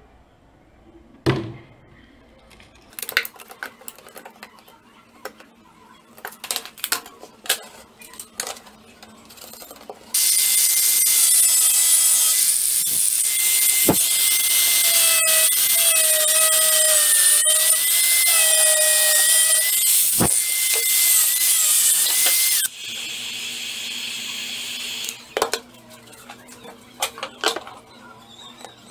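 Scattered knocks and clicks of parts being handled on a workbench. About ten seconds in, a power tool starts abruptly and runs loud and steady with a high whine for about twelve seconds, then cuts off. A quieter steady run follows for a couple of seconds.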